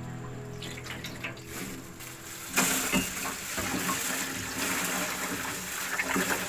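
Water splashing as rice is rinsed in a steel pot at the sink. About two and a half seconds in, a kitchen tap starts running hard into the pot with a steady hiss while the rice is stirred by hand under the stream.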